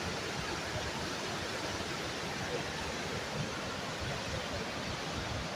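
Waterfall: the steady, even rush of a large river waterfall.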